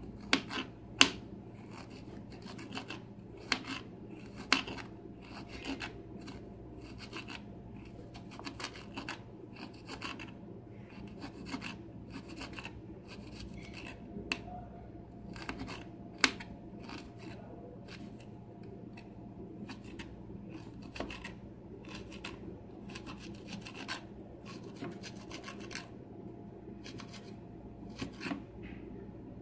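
Small kitchen knife cutting and scraping on a wooden tray: irregular light taps and rasping strokes, with a few sharper knocks in the first few seconds and one more about sixteen seconds in.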